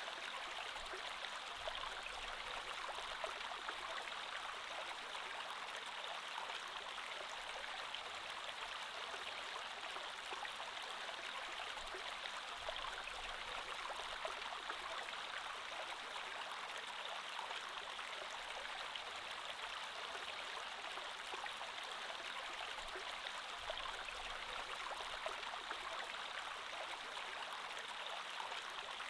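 Creek water flowing steadily over stones, a continuous rushing babble with small splashes scattered through it.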